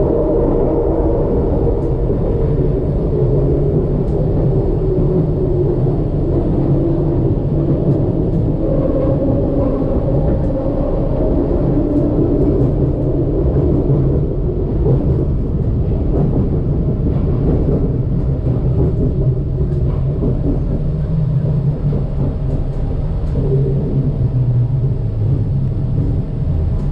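Detroit People Mover car, a linear-induction-motor automated train, running along its elevated steel track. It makes a steady rumble with tones that drift slowly up and down in pitch.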